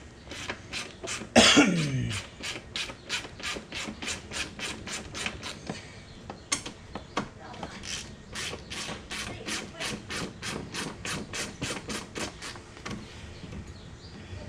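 An even series of short rasping strokes, about three a second, from a hand tool being worked during the wiring and panel work, stopping near the end.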